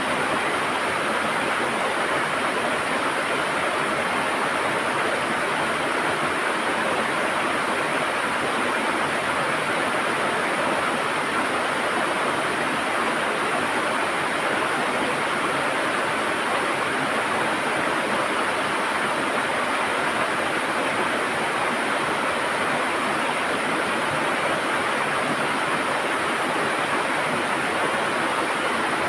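River water gurgling: a steady, even rush of flowing water with no breaks.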